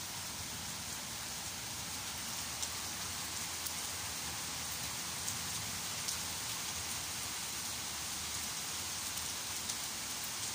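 Steady summer rain falling on trees, grass and pavement: an even hiss with now and then a single close drop ticking.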